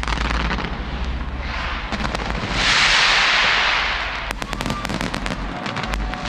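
Aerial fireworks display going off: many sharp pops and crackles over a low rumble of bursting shells. About two and a half seconds in, a loud wave of dense crackling swells up for over a second and then fades.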